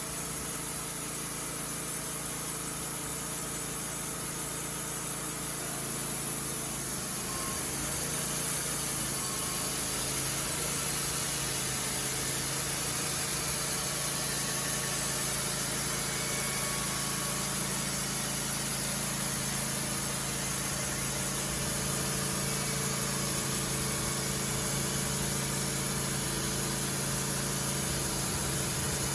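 Wood-Mizer LT15 Wide portable sawmill's engine running steadily, growing a little louder about eight seconds in.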